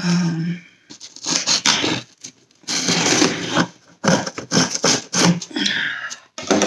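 A knife slitting the packing tape along a cardboard box's seam: repeated scraping strokes of the blade through tape and cardboard.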